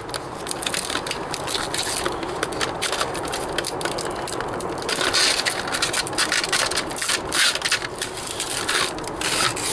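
Clear plastic packaging crinkling and crackling under the hands as sticky tape is peeled off it and the plastic sleeve is pulled open, a continuous run of small crackles with louder handfuls about five and seven and a half seconds in.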